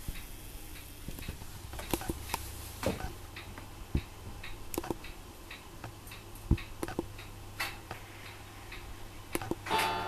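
Irregular small clicks and taps from a leopard gecko feeding on superworms at its dish, over a low hum. A plucked guitar chord starts near the end.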